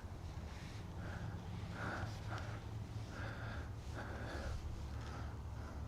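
A chicken giving a series of short, soft clucks, about eight spread irregularly over a few seconds, over a steady low rumble.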